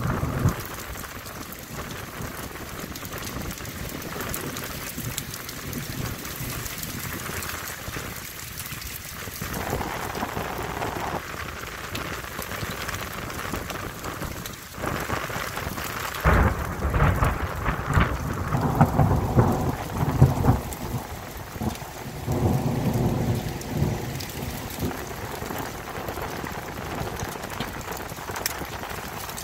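Thunderstorm: steady heavy rain falling on a concrete pad, with a long roll of thunder rumbling for several seconds about halfway through.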